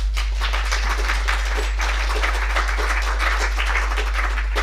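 Audience applauding: many hands clapping together, thinning out to a few last claps at the end, over a steady low hum.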